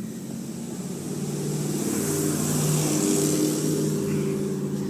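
A motor vehicle's engine going past, swelling in loudness toward the middle and easing off near the end.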